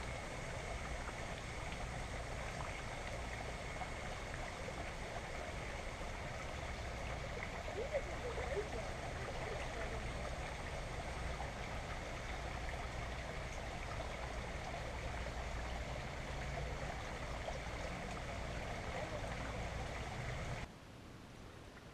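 Shallow river water running and trickling over rocks, a steady burble, which drops away abruptly near the end.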